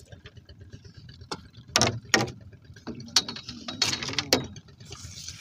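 Irregular knocks and clicks, with half a dozen sharper knocks through the middle.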